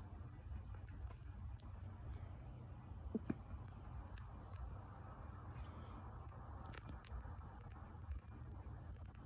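Insects trilling steadily at one high pitch over a low background rumble, with a faint tap or two about three seconds in.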